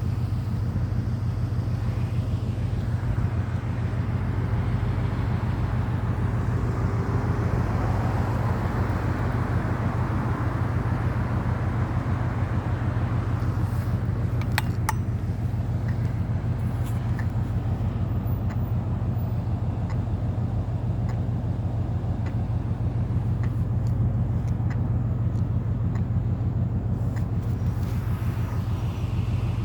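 Road traffic with a steady, low buzzing hum running under it throughout. The traffic noise swells and fades about ten seconds in.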